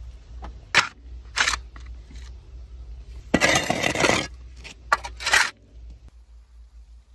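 Shovel blade scraping and slapping wet clay onto the rim of a tandoor's metal lid to seal it: a few short scrapes, one longer scrape about three and a half seconds in, then several quick scrapes.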